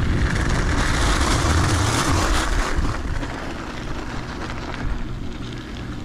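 Mountain bike tyres rolling and crunching over a gravel path, with wind rumbling on the helmet-mounted microphone. The crunching hiss fades about three seconds in, leaving the wind rumble and a quieter tyre sound.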